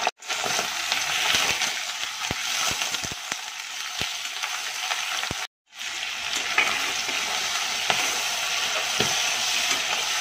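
Raw chicken pieces sizzling in hot mustard oil in an aluminium kadai: a steady frying hiss with a few sharp ticks. The sound cuts out for a moment twice, near the start and about halfway through.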